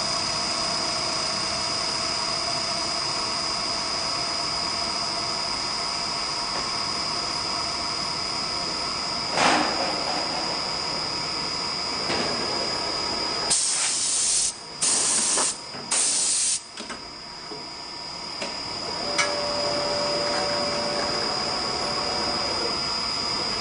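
CNC wood lathe running: a steady machine hum with a constant high whine, with a brief louder rush about nine seconds in. Three short loud hissing bursts, each about a second long, come close together about halfway through.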